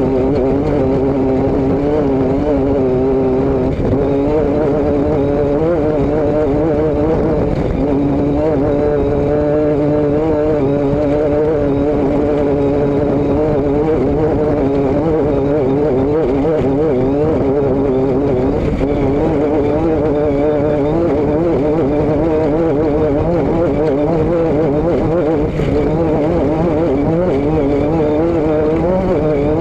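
Vehicle engine running steadily at a fairly constant speed, its pitch wavering slightly up and down, picked up close from the rear of the vehicle.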